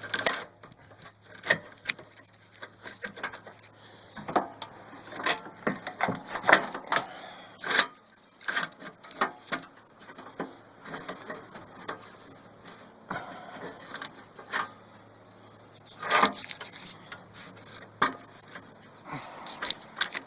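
Irregular clicks, knocks and rubbing as a riding mower's wiring harness is pulled and fed through the mower's frame, catching and shifting as it goes.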